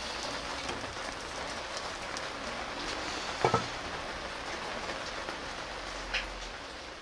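Steady crackling and sizzling of the charcoal fire inside an earthenware jar oven with a whole chicken roasting over it. About halfway through, a sharp clink with a short ring as the earthenware lid is set on the jar.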